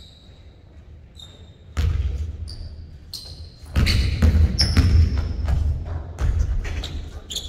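Basketball bouncing hard on a hardwood gym floor, once about 2 s in and then repeatedly from about 4 s on, with sneakers squeaking on the court and the hits echoing around the hall.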